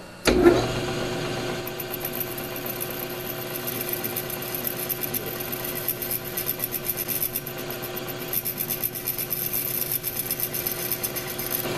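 Manual engine lathe switched on about half a second in, then running steadily with a steady hum and whine as its spindle turns bar stock in the chuck. A twist drill in the tailstock's drill chuck is fed into the spinning metal.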